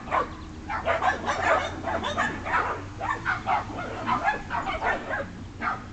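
Sheltie puppies yipping and barking in play as they tussle over a stick, a rapid string of short, high yips.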